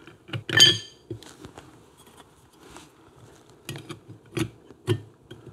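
Clutch plates on a Triumph Tiger Cub engine's clutch hub being handled and pressed into place, metal clicking and clinking against the hub, studs and chain. A single ringing metal clink about half a second in is the loudest sound, followed by scattered light taps and a few sharper clicks near the end.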